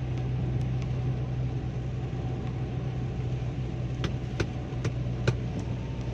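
A car driving on the highway in heavy rain: a steady low hum of engine and road with an even hiss of rain. About four seconds in come four quick sharp ticks, about two a second.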